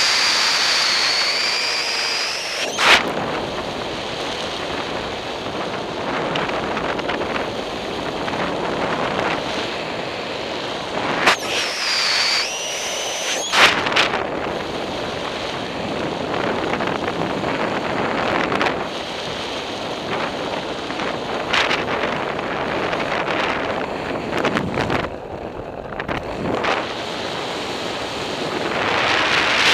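Wind rushing over the microphone of a camera carried on a paraglider in unpowered flight: a steady hiss of airflow, with a high whistle at the start and again about twelve seconds in, and a few sharp knocks.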